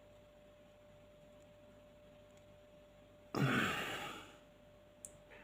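A person sighing once, a breathy exhale about three seconds in that fades over about a second, followed by a small click near the end, over a faint steady hum.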